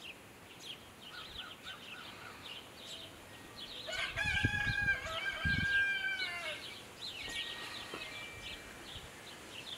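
A rooster crowing once, a single long call of about two and a half seconds starting about four seconds in, over scattered light bird chirps.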